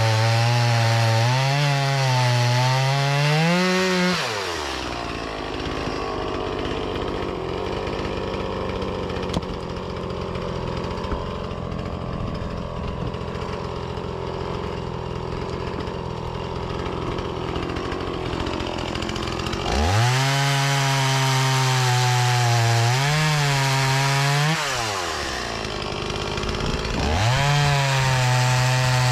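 Gasoline chainsaw at full throttle. About four seconds in, its pitch drops as the chain bites into a firewood log, and it cuts under load for about fifteen seconds. It then revs freely again, eases off briefly near the end and revs back up.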